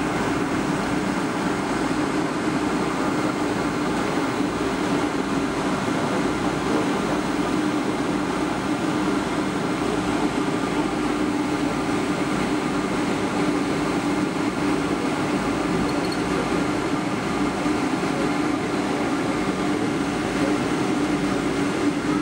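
Steady cabin noise of an airliner taxiing: engine and air-conditioning hum forming one even drone with a few steady tones in it.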